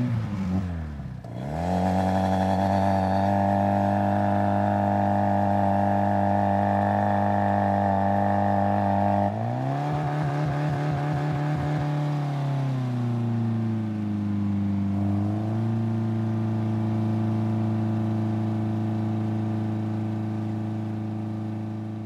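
Fire engine auxiliary pump running. Its pitch plunges and comes back up about a second in, then holds steady. About nine seconds in it shifts abruptly, wavers and sinks, and near fifteen seconds it steps back up to a steady run.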